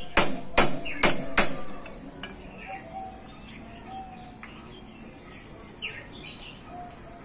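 Four sharp hammer blows on a square steel tube clamped in a bench vise, about two a second, each with a short metallic ring, bending a cut tab over to lock a right-angle joint without welding. Faint bird chirps follow.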